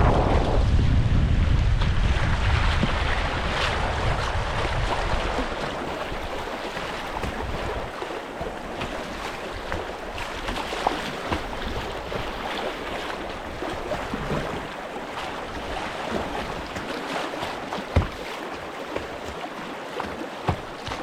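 Moving river water rushing and splashing around a kayak on a river run. Wind buffets the microphone heavily for the first few seconds. After that the water noise goes on more steadily, with a few sharp knocks, the loudest about 18 seconds in.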